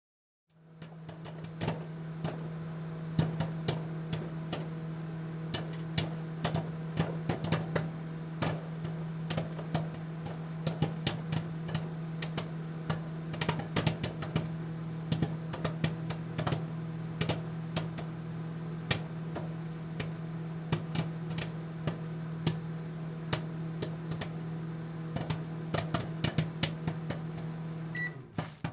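Microwave oven running with a steady hum while popcorn pops inside: many sharp pops, irregular and at their densest in the middle. The hum cuts off shortly before the end as the oven stops.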